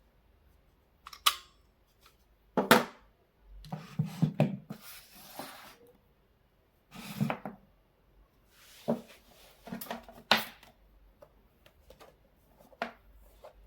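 Multimeter probes and a replacement battery cell being handled on a workbench: scattered clicks and knocks with some rustling.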